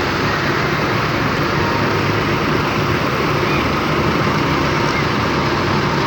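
Steady road-traffic noise: bus and vehicle engines running with a continuous low rumble and tyre hiss, no horn sounding.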